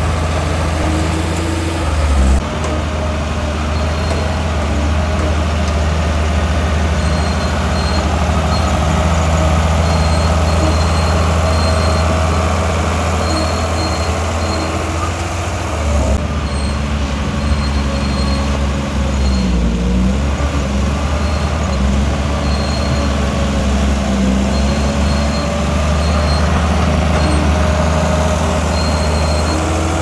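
Bulldozer's heavy diesel engine running steadily, its pitch shifting and dipping briefly a few times as the load changes.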